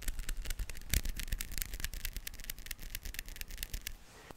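Long fingernails tapping and clicking against each other close to a microphone, a quick irregular run of sharp clicks that thins out about four seconds in.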